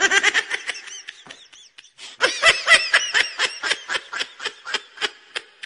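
Laughter, most likely an added laugh sound effect, in quick rhythmic bursts of about four or five a second: one short run at the start, then a longer run from about two seconds in.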